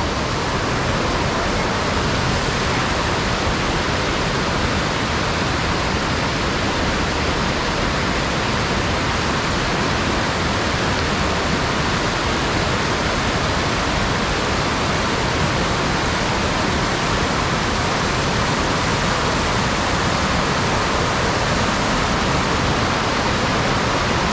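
Waterfall rushing: a steady, loud wash of falling water with no change in level.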